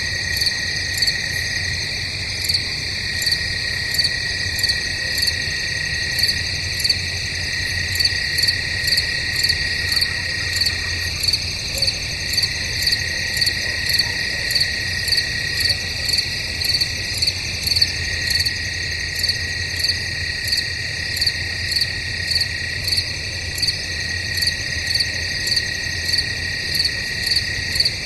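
Crickets chirping in a chorus at night: a steady high trill under a rhythmic chirp that repeats about twice a second.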